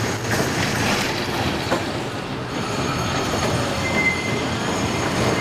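A TFS (Tramway Français Standard) tram running past on curved street track: steady wheel-on-rail rumble with one sharp clack of the wheels about two seconds in and a brief high squeal of the wheels on the curve about four seconds in.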